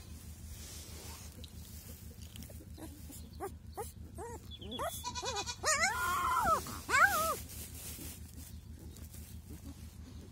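Kangal puppy crying: a run of short high-pitched whimpers from about three and a half seconds in, building into longer rising-and-falling squeals, loudest near the middle, as it is lifted by the scruff.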